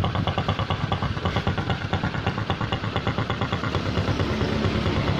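Honda Supra X 125's single-cylinder four-stroke engine idling steadily. It now runs smoothly (halus): the rough snoring 'ngorok' idle, caused by a breather hose from the cylinder head to the membrane cracked at its clamp, is gone with the hose replaced.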